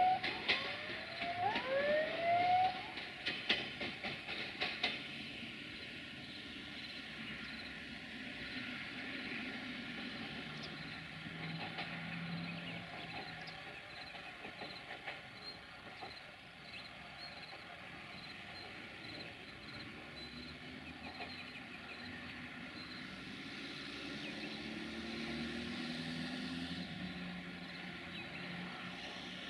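Siemens Desiro VT642 diesel multiple unit moving away along the track, with short rising whistle-like tones and sharp rail clicks in the first few seconds. After that comes a steady fainter rumble, with cars driving over the level crossing near the middle and again near the end.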